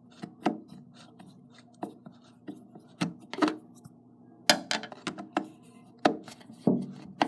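Screwdriver backing a screw out of a window lock: a dozen or so sharp, irregular clicks and knocks as the tool is turned and reset.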